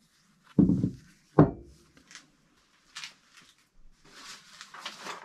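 Steel block knocking onto a wooden workbench twice, about half a second and a second and a half in, followed by faint rustling and handling sounds.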